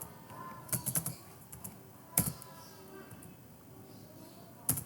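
Computer keyboard keystrokes while typing code, sparse and unhurried: a quick cluster of a few keys about a second in, then single keystrokes a little after two seconds and near the end.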